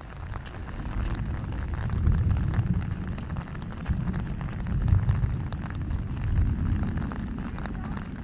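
Wind buffeting the microphone: a low rumble that swells and falls irregularly, with faint light ticks of rain.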